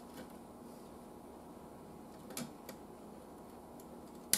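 A few light clicks and taps over faint room tone: one just after the start, two about two and a half seconds in, and a sharper one at the end. They come from hands and meter test probes working on the radio's wiring.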